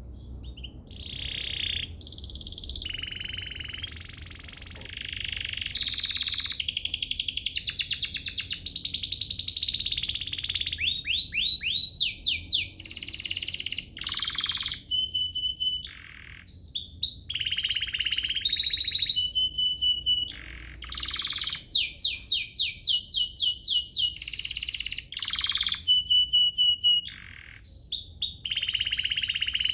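Domestic canary singing a long, varied song of fast trills and rolls, rapid runs of sweeping notes, and repeated clear whistled notes, in phrases separated by brief pauses.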